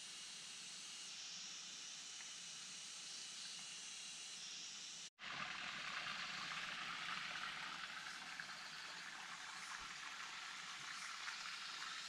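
Steady hiss of rushing water. The sound cuts out for an instant about five seconds in and comes back louder.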